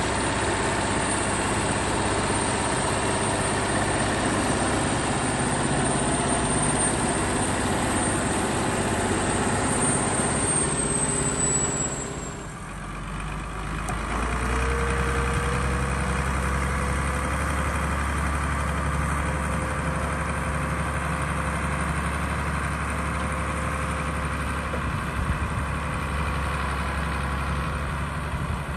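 Tractor diesel engines running steadily under load. About twelve seconds in the sound cuts to a deeper, steady engine drone as one tractor tows another out of a flooded, muddy pond on a cable.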